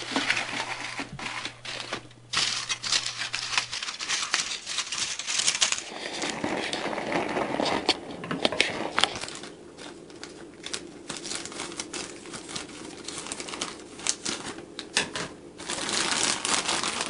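Crumpled aluminium foil crinkling and crackling as it is handled and spread over a cookie sheet, followed by the crinkle of a plastic bag of frozen fries being picked up. Irregular, dense crackles throughout.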